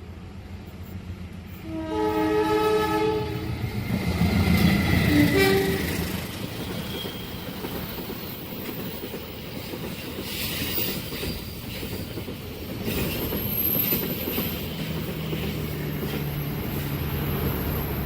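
Passing train sounding its air horn, a chord of several tones held for about a second starting two seconds in, with a short second toot a few seconds later. The train then runs past with a steady noise of wheels on rail.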